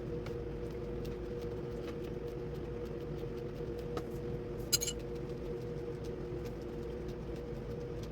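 A steady low hum, with one sharp, ringing clink a little past halfway, like a small hard object set down or tapped.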